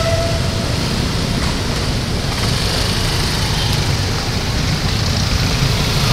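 Passenger train rolling past at a road level crossing: a steady rumble mixed with the running of waiting motorcycles and cars. A short vehicle horn ends just after the start.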